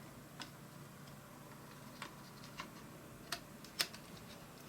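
Faint, scattered small clicks and taps of the Mac mini G4's AirPort wireless card being handled and fitted back into its slot, about five light ticks spread across a few seconds.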